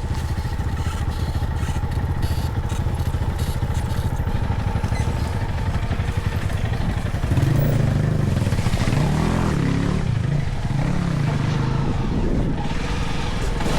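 Motorcycle engine running under way in gear on a trail. About halfway through it gets louder and its pitch rises and falls repeatedly as the throttle is worked.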